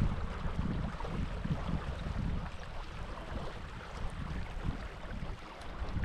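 Wind buffeting a GoPro action camera's microphone in uneven gusts of low rumble, over a steady hiss of running stream water.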